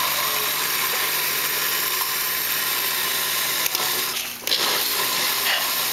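Electric kitchen blender running steadily, its glass jar blending mango chunks with ice, milk and sugar into a shake; the sound dips briefly about four and a half seconds in and then goes on.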